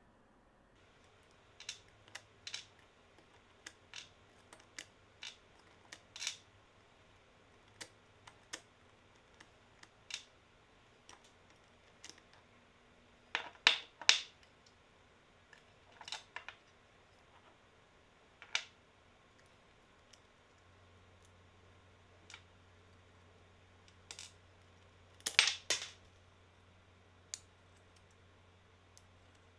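Small metal gearbox parts of a cordless drill (gear rings, planet gears and screws) clicking and clinking as they are handled and set down on a wooden bench. The clicks are scattered, with two louder clusters of clinks, about 13 seconds in and again about 25 seconds in.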